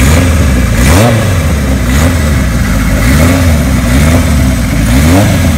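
1975 Kawasaki Z1 900's air-cooled inline-four engine running through a Kerker exhaust, revved up and let back down in quick throttle blips about once a second.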